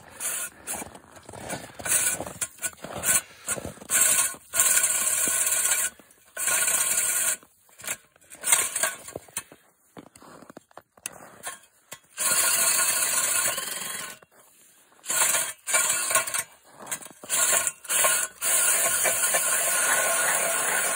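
Cordless drill spinning a hand ice auger as it bores a hole through lake ice, the drill starting and stopping over and over in short bursts, with a few longer runs of two or three seconds.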